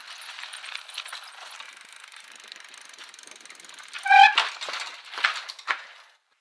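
Rapid mechanical ticking over a hiss, with a short squeal of several pitches about four seconds in and a few sharp clicks after it, stopping shortly before the end.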